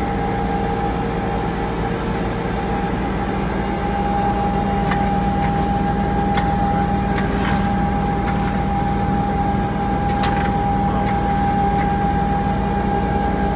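Jet fuel truck's engine and fuel pump running steadily while pumping: a low rumble with a steady whine that grows a little stronger about four seconds in, and a few light clicks.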